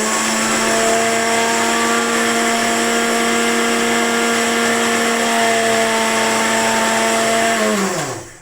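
Electric kitchen mixer-grinder running steadily at full speed, grinding almonds, black pepper, thread mishri and poppy seeds into a powder. Near the end the motor is switched off and its whine falls in pitch as it runs down.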